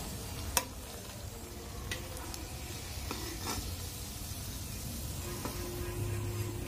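Roti-and-potato snacks deep-frying in hot oil in a kadhai, sizzling steadily. A steel slotted spoon clinks sharply once about half a second in, then taps lightly a few more times as the fried pieces are lifted out.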